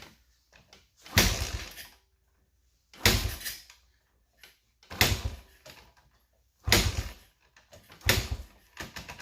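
Honda XR100R dirt bike being kick-started five times in a row, a kick about every one and a half to two seconds; each kick turns the engine over in a short burst of noise and it does not catch and run.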